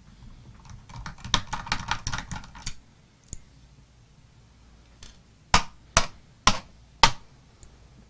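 Small metal laptop screws rattling and clicking in the hand, then set down one by one on a wooden tabletop: four sharp clicks about half a second apart near the end.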